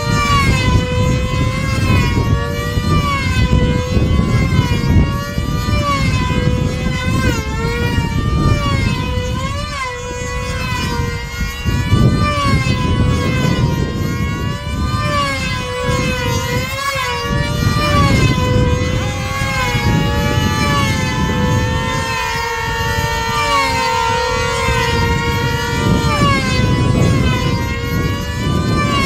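Two control line combat model airplanes with small high-revving engines running flat out as they circle on their lines, a high whine whose pitch rises and falls with each lap. The two engines' tones weave against each other throughout.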